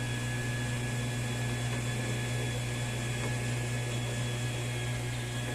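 Turbine Wash portable mini washing machine running steadily, its small motor humming low with a thin high whine as the turbine spins and stirs the dishwashing-liquid mixture.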